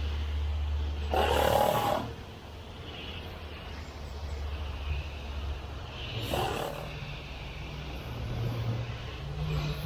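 A small engine running steadily at a low pitch, which shifts higher later on. Two louder hissing spray bursts come about a second in and about six seconds in.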